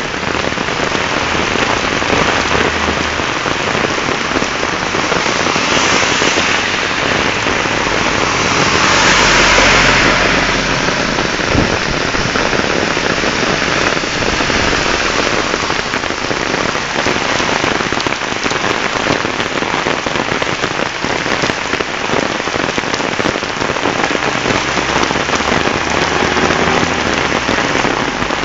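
Heavy monsoon rain pouring down steadily in a dense hiss, swelling louder for a second or two about nine seconds in.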